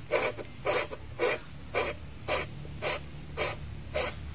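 Engine valve being hand-lapped against its seat in a Super Kama 12 HP single-cylinder diesel cylinder head with grinding compound, twisted back and forth with pliers. It makes a gritty scraping stroke about twice a second, grinding the valve and seat so they seal again.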